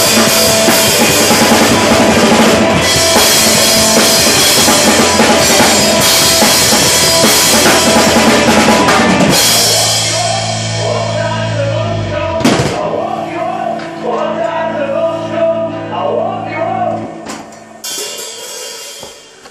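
Rock drum kit, with crash cymbals, snare and bass drum, played hard along with a recorded rock song until about halfway. The drums then stop except for a single hit, while the song's held closing notes ring on and die away near the end.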